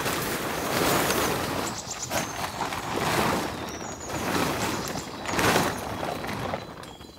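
Large plastic tarp rustling and crackling as it is pulled and shaken out over a structure, the noise swelling and fading with each pull.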